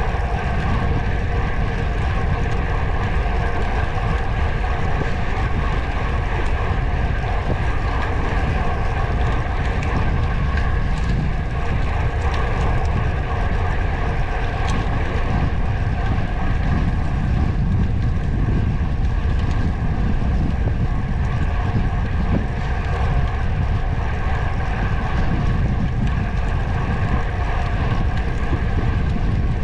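Wind rushing over the microphone during a ride, mixed with a steady vehicle drone and low rumble.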